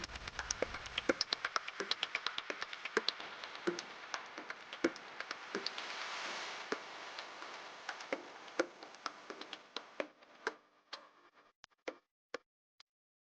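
Origami paper being folded and creased by hand: rapid crackling ticks over a soft rustle, thinning to a few separate clicks and falling silent near the end.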